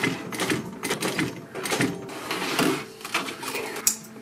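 Industrial sewing machine stitching a leather tab onto coated canvas, running in short start-stop bursts.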